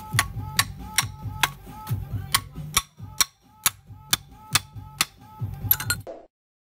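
Steel hammer tapping on a Hino EH700 piston and connecting rod in a steady rhythm, about two ringing metal-on-metal strikes a second, working the piston pin out to free the connecting rod. Near the end comes a quick flurry of taps, then it stops.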